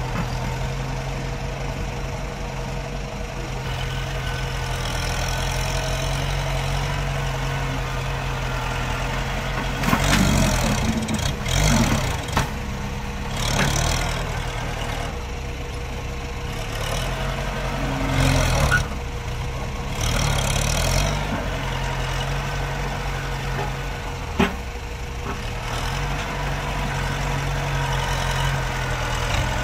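Farm tractor's diesel engine running steadily as its front blade pushes against a tree stump, with a few louder surges under load. There is one sharp knock late on.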